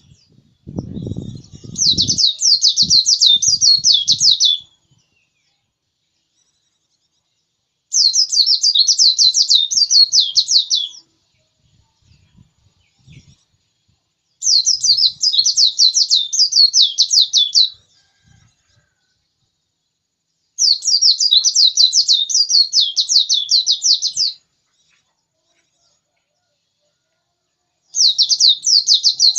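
A white-eye (pleci) singing in repeated bouts of rapid, high twittering notes, each bout about three to four seconds long with pauses of about three seconds between, four full bouts and a fifth starting near the end. A few soft low thumps come about a second in.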